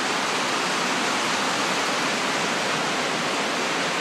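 Heavy rain pouring down, a loud, steady, even hiss.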